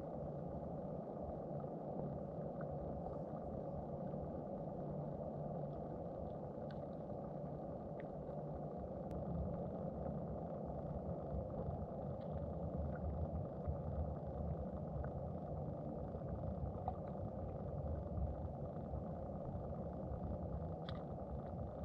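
Steady muffled underwater rumble heard through a submerged camera, with a few faint scattered ticks.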